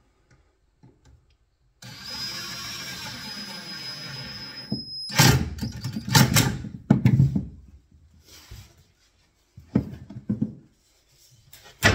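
Makita cordless impact driver driving a screw into a kitchen corner-post bracket: a steady whirr with a thin high whine from about two seconds in, then several much louder bursts as the screw drives home. A few short knocks follow near the end.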